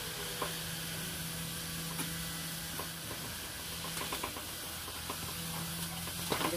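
Steady background hiss with a faint low hum, and a few light knocks on a metal extension ladder as two men climb it with an air-conditioner outdoor unit.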